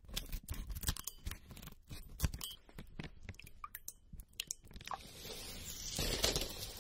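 Pills and plastic-and-foil blister packs being pressed and crushed, giving a run of sharp, irregular crackles and crunches. About five seconds in it turns to a denser, more continuous crackling.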